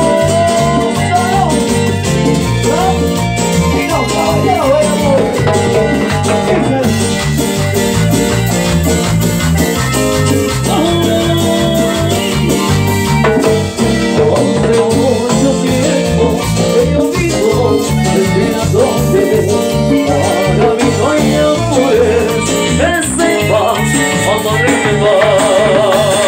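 Live Latin dance band playing, with singers over timbales, congas and a steady, repeating bass line.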